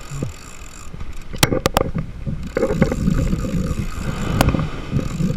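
Wind rumbling on the microphone over breaking surf, with a few sharp clicks about a second and a half in and one more near the end, while a spinning reel is cranked in.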